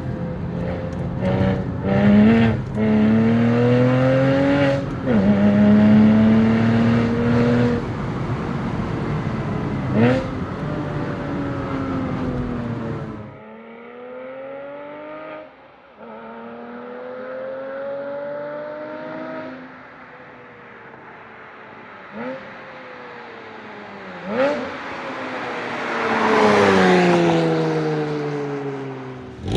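Porsche Boxster S 987's 3.2-litre flat-six through a Capristo valved exhaust, accelerating hard: the engine pitch climbs and drops sharply several times, as at gear changes. About halfway through it turns suddenly quieter and thinner, climbs again more softly, and near the end grows loud with the pitch falling.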